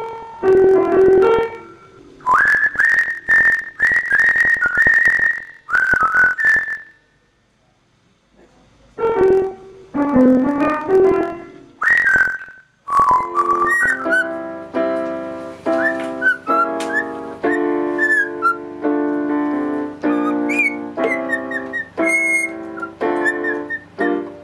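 An African grey parrot whistles a string of short, sharp high notes, with a brief pause midway. From about 13 seconds in, a piano plays chords while a small parrot whistles along above them.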